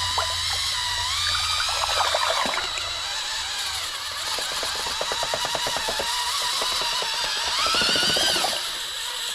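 Drill-driven paint stirrer churning thick, sludgy marine bottom paint in a can. The motor whine rises and falls in pitch as the speed changes, with a rapid clicking run partway through.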